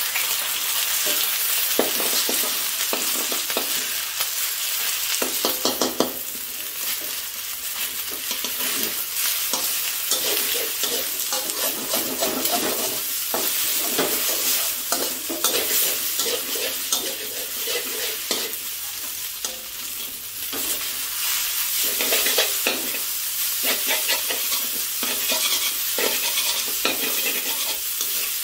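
Rice vermicelli with egg stir-frying in hot oil in a wok: a steady sizzle, with the spatula scraping and knocking against the pan over and over as the noodles are tossed.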